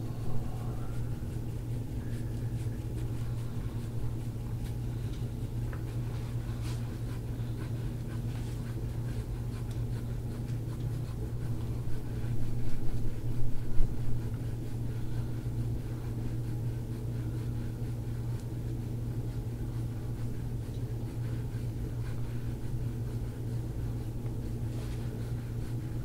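Soft scraping of a gua sha tool drawn over oiled skin, under a steady low mechanical hum. The sound grows louder for a couple of seconds about halfway through.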